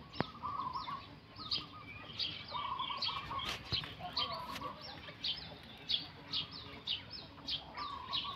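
Birds chirping and calling, with short high chirps coming several times a second and lower warbling calls in between, and one sharp click just after the start.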